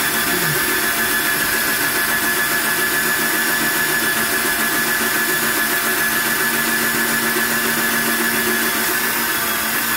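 Cordless drill running steadily with a high whine, spinning a homemade stirrer of two stainless steel butter knives on a stirring stick in a plastic fermenting bucket, mixing sugar into a beer kit's wort so it dissolves and doesn't settle.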